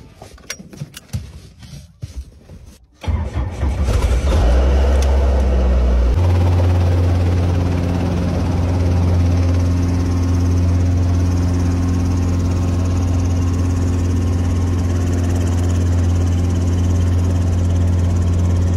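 A few light handling clicks, then the loud, steady low drone of a small helicopter's engine and rotor heard from inside the cockpit cuts in suddenly about three seconds in. A few seconds later it steps up to a slightly higher pitch and holds there.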